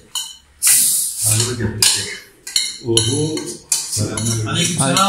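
Dishes and a metal pot clinking and scraping as food is tipped out of a large aluminium pot onto a serving platter, with people talking over it.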